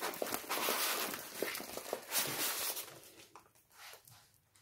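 Diamond painting canvas with its clear plastic film and paper backing rustling as it is rolled up by hand, with a few light taps; the rustling dies away about three seconds in.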